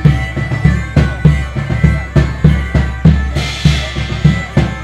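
Medieval-market band playing live: bagpipes holding steady notes over a driving drum beat of about two to three hits a second, with a bright crash about three and a half seconds in.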